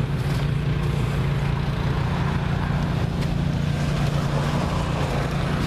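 Lawn tractor engine running steadily at a constant speed, close by.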